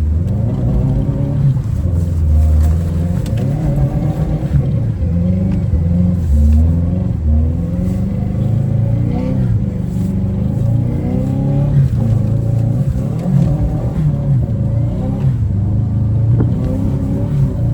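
Subaru WRX's turbocharged flat-four engine running as the car drives, its pitch rising and falling with the throttle.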